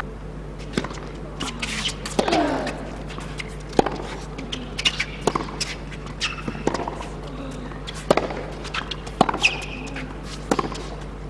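Tennis ball being struck back and forth in a rally on a hard court: sharp racket hits about every second to second and a half, with short grunts from the players.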